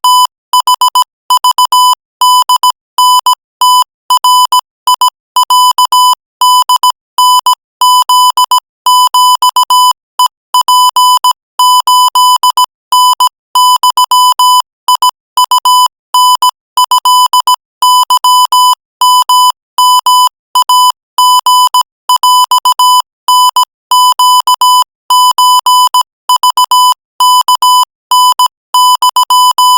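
Morse code sent at 20 words per minute as a buzzy beep near 1 kHz, keyed on and off in a steady stream of short dots and longer dashes with brief gaps between letters and words.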